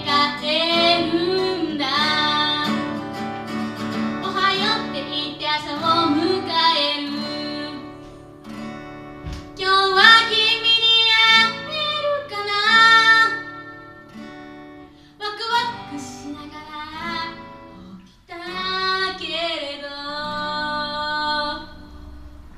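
A woman singing and accompanying herself on acoustic guitar, in phrases with vibrato on the held notes. Her voice stops near the end, leaving the guitar.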